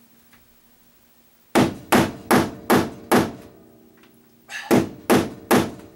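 Claw hammer driving an 8-penny nail, which has already bent a little, through galvanized sheet-metal flashing into OSB floor decking. There are five quick, evenly spaced blows, then after a short pause three or four more.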